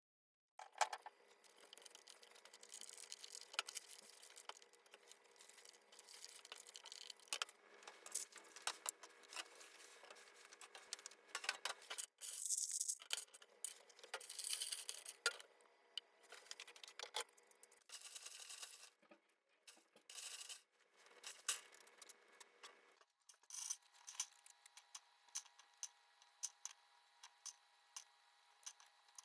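Plastic parts of an HHKB Professional 2 keyboard being handled during cleaning: light clicks and clatter of keycaps, with a few short bursts of rubbing or scraping partway through.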